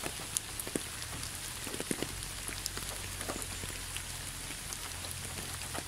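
Steady rain falling, with scattered single drops ticking, over a low steady rumble.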